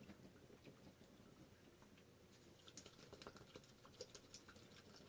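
Near silence with faint scattered clicks and taps of small objects being handled, thicker in the second half.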